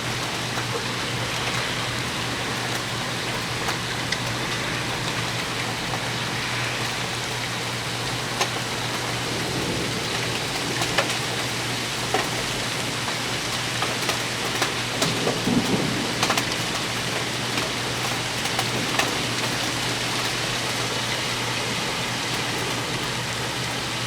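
Heavy thunderstorm rain falling steadily, with scattered sharp ticks of drops striking a nearby hard surface, thickest about two-thirds of the way through.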